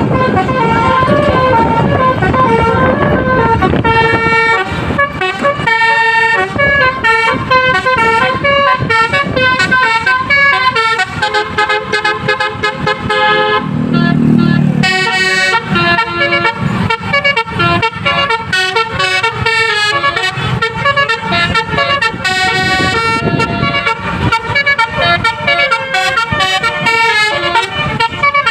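A Dav musical air horn on a tour bus playing the viral 'telolet' tune, a string of loud horn notes stepping quickly from pitch to pitch. About halfway through the notes break off briefly under a low rumble, then the tune carries on.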